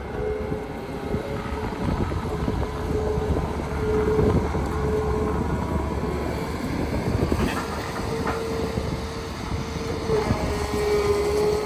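Volvo EW210D wheeled excavator driving on its rubber tyres: the diesel engine runs steadily with a low rumble and a held whine over it. A couple of short clanks come about seven to eight seconds in.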